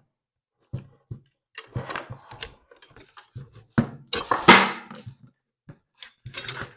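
Steel parts of a Yale spur-geared chain hoist clinking and knocking as the housing nuts come off by hand and the housing is pulled apart. About four seconds in there is a louder metal clatter.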